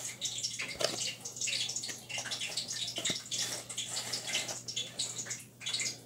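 Hot frying grease crackling and popping steadily as it comes up to frying temperature, ready for the fish to go in.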